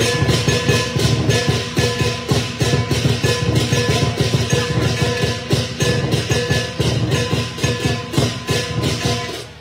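Lion dance percussion ensemble, a large drum with cymbals and gong, playing a fast, dense, loud beat under ringing metal tones. It stops suddenly near the end.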